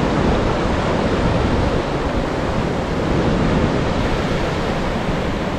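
Surf breaking and washing up a sandy beach: a steady rush of waves.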